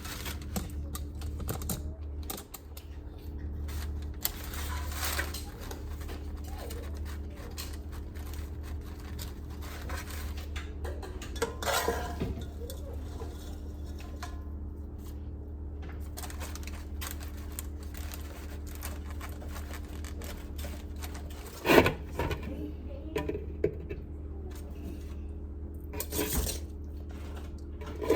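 Kitchen utensils and dishes clinking and knocking during food preparation, with one louder knock late on, over a steady low hum.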